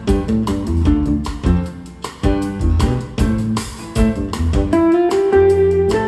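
Band music with an electric bass guitar line over drums, played back through a pair of Yamaha NS-C150 center-channel speakers used as stereo speakers, with a Yamaha YST-RSW300 subwoofer.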